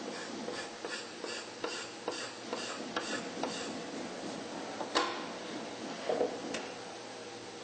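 Hand work on the wooden inner rim of a grand piano: a run of short, light clicking strokes, about two to three a second, then a single sharper knock about five seconds in.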